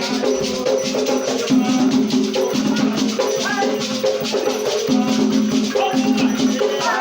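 Batuque ritual music starting abruptly: a gourd shaker rattling in a steady rhythm with drums, and voices chanting over it.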